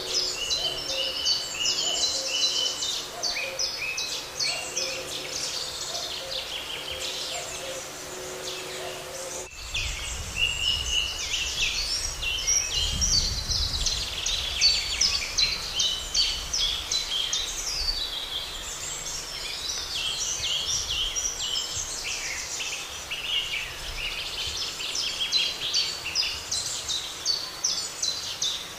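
Dense chorus of songbirds singing, many overlapping chirps and trills. About nine and a half seconds in, the sound changes abruptly, as at a splice, and a low rumble joins underneath.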